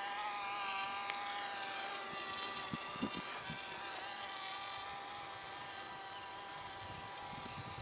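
Radio-controlled Wild Hawk model airplane flying overhead, its motor and propeller giving a steady high-pitched whine that slowly fades toward the end. A few soft low thumps come about three seconds in.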